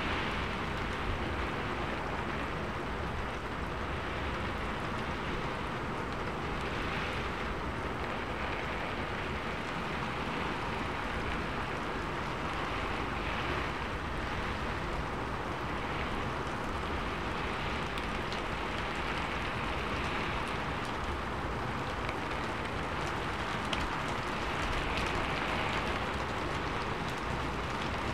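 Steady rain falling on a sheet-metal roof: an even hiss with scattered sharp ticks of single drops.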